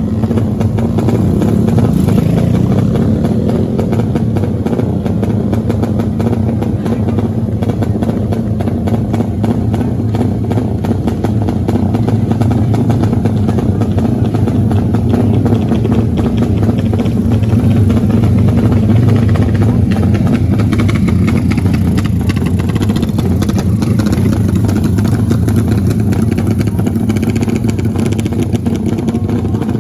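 Off-road motorcycle engine running, loud and steady.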